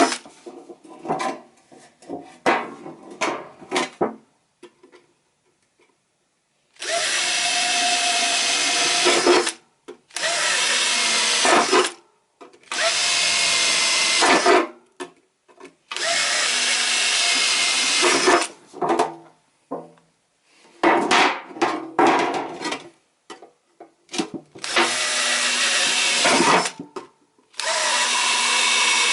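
Electric drill boring holes in a metal can, running in repeated bursts of two to three seconds with short pauses between them. Small clicks and scrapes of handling fall in the pauses.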